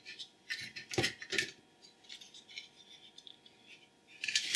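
A small electronics circuit board being lifted out of its plastic case and handled. A few light clicks and knocks come first, then a louder scraping rattle near the end.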